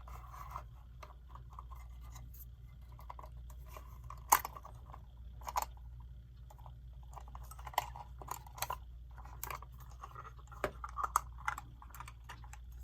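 Small clicks, scrapes and handling noises as the glass and rim are worked off the front of a quartz clock's case, with one sharp click about four seconds in and several more after.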